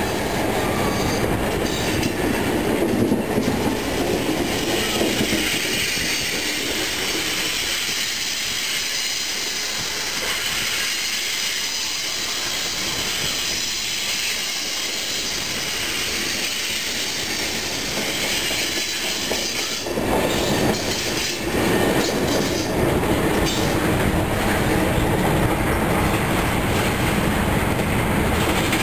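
A train passing on the tracks close by, its steel wheels running over the rails in a continuous loud rumble that swells again about two-thirds of the way through.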